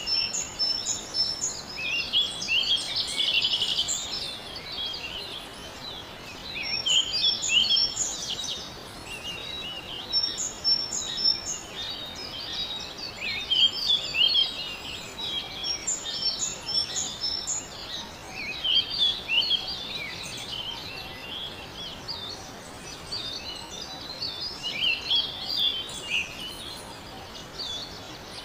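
Several birds chirping and singing at once, with short high notes repeated in quick groups, over a steady background hiss.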